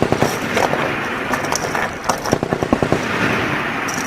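M240B machine guns firing short bursts of about ten rounds a second on a firing range, with other shots going off along the line in between.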